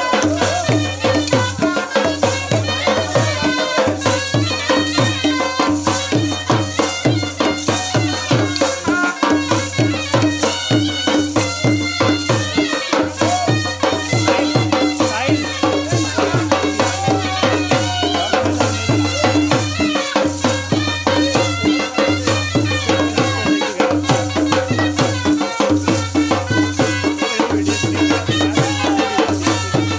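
Loud traditional folk band music: fast, steady drumming with a melody line over it.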